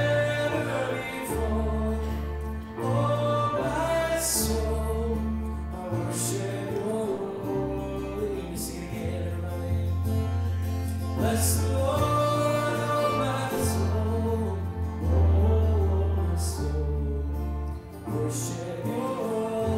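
Live worship music: a man singing a slow chorus with strummed acoustic guitar and a deep bass line that changes note every second or two.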